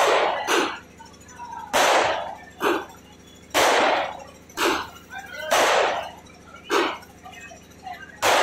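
JBR 120-shot multicolour fireworks cake firing shot after shot. Each shot is a loud bang followed under a second later by a smaller one, about one pair every two seconds: four pairs, then another bang at the very end.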